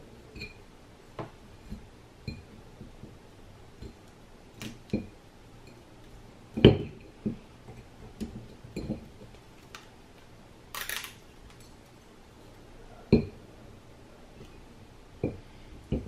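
Scattered light clicks and knocks of metal parts being handled: the copper-wound stator of a Ninebot Mini Pro hub motor being worked back into its magnet rotor. Two sharper knocks stand out, one before the middle and one late, with a short rustle in between.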